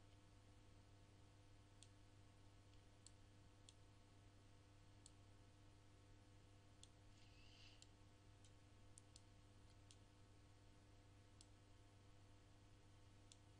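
Near silence: a steady low hum with about a dozen faint, scattered computer mouse clicks.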